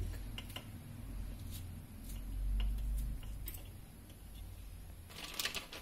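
Kitchen knife cutting a tomato by hand over a steel plate: scattered sharp clicks of the blade, with a denser, louder bout of clicking and scraping near the end.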